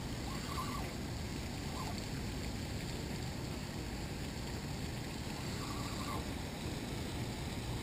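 Steady rushing wind noise on the microphone, uneven at the low end.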